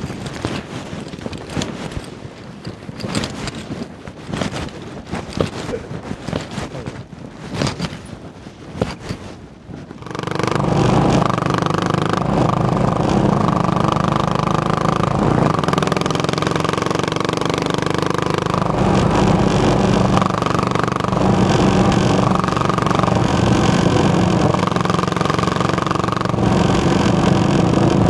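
A single-cylinder Yamaha motorcycle engine starts up about ten seconds in and then runs steadily, as at idle. Before that there is irregular rustling and knocking, with wind on the microphone.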